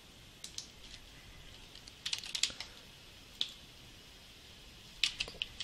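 Keystrokes on a computer keyboard: a few single taps, and two short quick runs of keys, one about two seconds in and one near the end.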